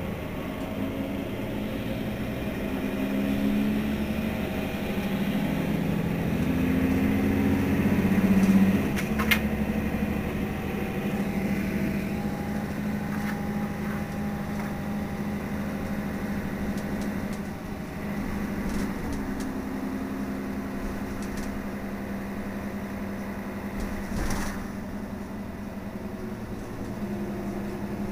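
Mercedes-Benz Citaro city bus's diesel engine running. Its note rises and shifts in steps for the first nine seconds or so, as under acceleration, then holds a steady hum, with a sharp click about nine seconds in.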